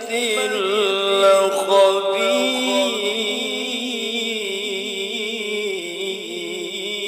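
A male qari reciting the Qur'an in the melodic tilawah style. Quick ornamented turns in pitch in the first two seconds, then one long held note that wavers slightly.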